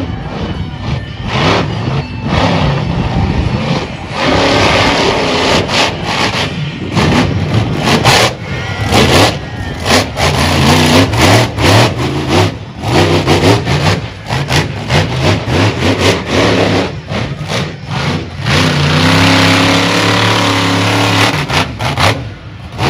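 Monster truck engine revving hard and loud, its pitch rising and falling with the throttle, with sharp crackles and bangs throughout and a steady held note near the end.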